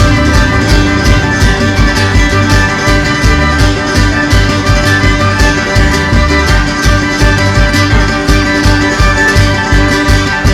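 Background music: an instrumental country or bluegrass passage with guitar and fiddle over a steady beat.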